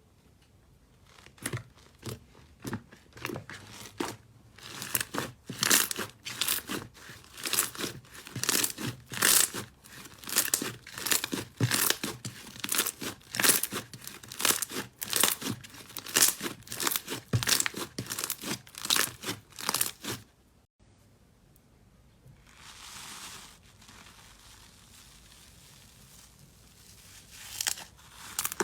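Slime being squeezed and pressed by hand, giving dense, rapid crackling and crunching pops that stop abruptly about twenty seconds in. A quieter stretch with a short soft rustle follows, and the crackling starts again near the end.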